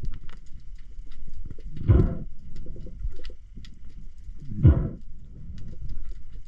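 Spearfisher breathing hard through a snorkel: two loud breaths about two and a half seconds apart, with scattered small clicks from the water in between.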